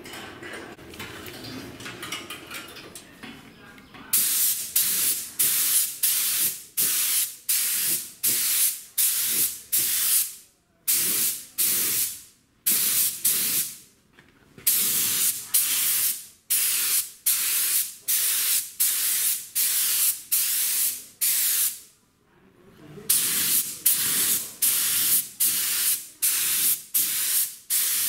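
Compressed-air paint spray gun spraying black paint onto a steel drum, starting about four seconds in: loud short hissing bursts, about two a second, with a few brief pauses between runs.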